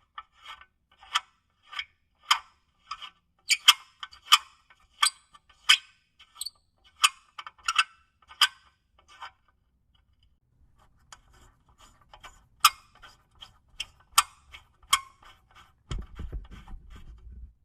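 A series of sharp clicks, about one to two a second, pausing briefly around ten seconds in, then resuming over a faint low hum; a low rumble comes in near the end.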